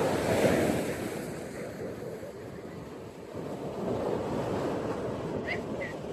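Ocean surf washing on a beach: a steady rush of waves that swells near the start, eases off in the middle and builds again. Two short high chirps sound near the end.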